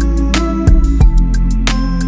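Background instrumental music with held notes over a steady bass.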